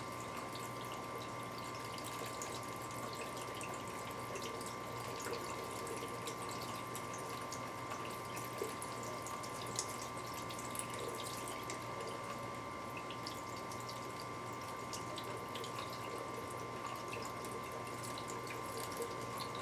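Wort running from a tube into a glass carboy, trickling and splashing with many small drips, while a yeast starter is poured slowly in through a funnel. A steady hum runs underneath.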